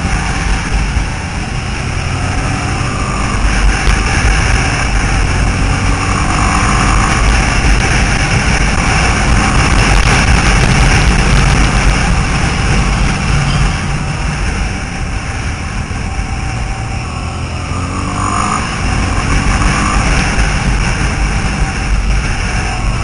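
50cc scooter engines running at road speed, their note rising and falling a little through the bends, with heavy wind rushing over the microphone.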